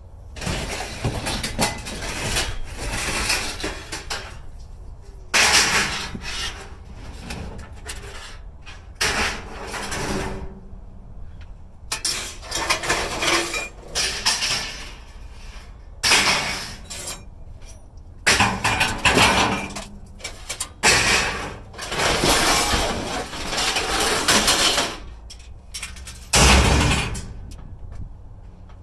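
Scrap metal clanking and clattering in irregular bursts as pieces are handled and tossed, with many sharp knocks between short pauses.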